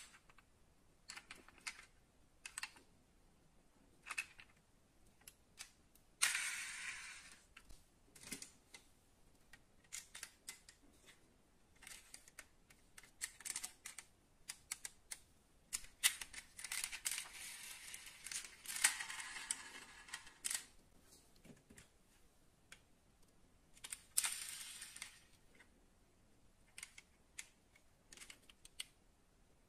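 Light clicks and taps of hands handling small die-cast model cars and working their opening doors, with three longer rubbing noises of a second or more.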